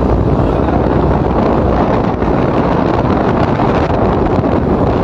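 Loud, steady wind rush buffeting the microphone of a moving motorcycle, covering any engine sound.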